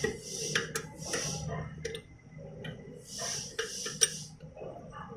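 Steel change parts and bolts clicking and clinking as they are fitted by hand onto an NJP800 capsule filling machine's turret, a few sharp metal clicks with the loudest about four seconds in. Three short hissing bursts come between them over a faint steady hum.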